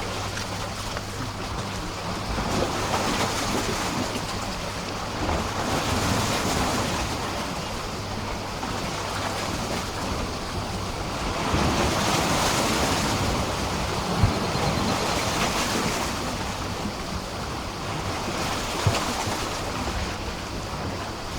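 Sea waves washing and splashing against a pier, the wash swelling and falling back every few seconds, with two short sharp slaps in the second half.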